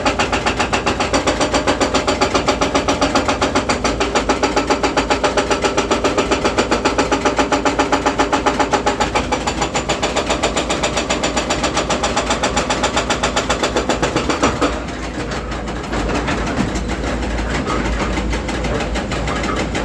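Hydraulic hammer breaker on a Volvo EC210D excavator pounding in a rapid, even rhythm of about six or seven blows a second over the diesel engine. About three quarters of the way through the hammering stops, leaving the engine running.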